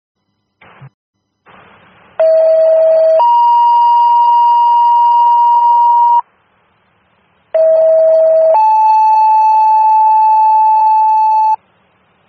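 Two-tone sequential pager alert tones on a fire dispatch radio channel, sent to alert units before a dispatch. They play twice: each time a lower tone held about a second steps up to a higher tone held about three seconds, and the second set's higher tone is a little lower than the first's. Short bursts of radio static come first.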